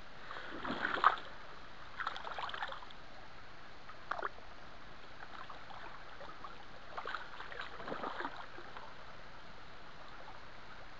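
Water splashing and sloshing in short bursts around a hand and a trout held in a shallow stream to revive it, over the steady run of the stream; the loudest splash comes about a second in.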